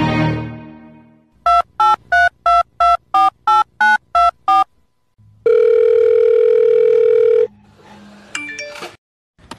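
Telephone keypad dialling tones: ten short two-note beeps in quick succession, then one steady ringing tone held for about two seconds. Before them, a musical sound dies away during the first second.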